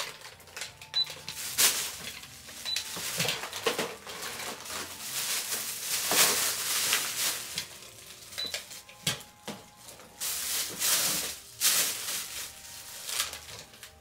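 Toy checkout scanner giving a few short high beeps as grocery boxes are scanned, amid rustling of a plastic shopping bag and handling of cardboard boxes and packages.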